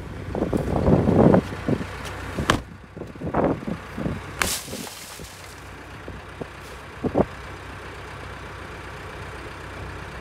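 Boots crunching through snow, then a shovel striking a Jeep Liberty's side window twice, the second blow ending in a short bright crash of breaking glass, with a smaller knock a few seconds later.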